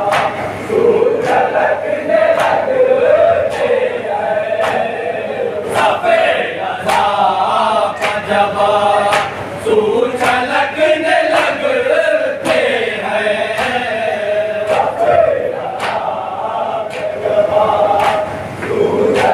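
A group of men chanting a nauha (Shia lament) in unison, with sharp slaps of matam (chest-beating) keeping a steady beat of about three strokes every two seconds.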